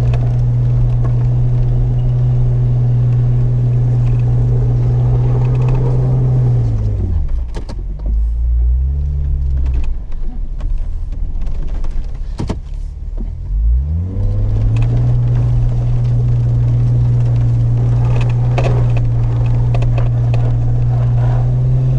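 Jeep Wrangler's engine and drivetrain droning steadily while driving a snowy trail. About seven seconds in the engine note drops away into a low rumble, then climbs back about fourteen seconds in and holds steady again.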